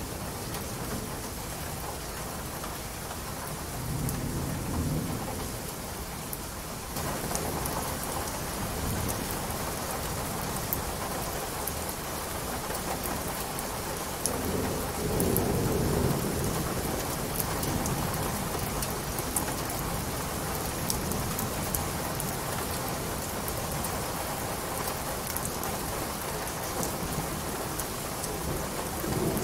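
Steady rain with fine pattering drops, growing denser about seven seconds in. Low rumbles of thunder swell about four seconds in and again, louder, around fifteen seconds.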